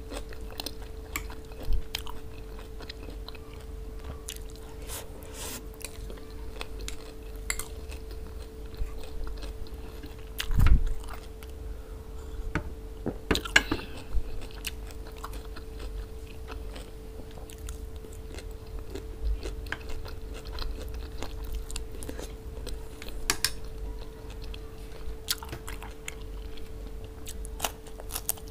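Close-miked chewing and biting, some bites crisp and crunchy, as a person eats a raw cucumber and tomato salad by hand. A steady faint hum sits underneath, and there is one dull thump about ten seconds in.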